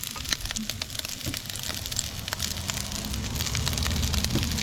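Fried rice sizzling and crackling as it fries in a pan, a dense run of small pops over a steady hiss, with a low hum coming in about halfway.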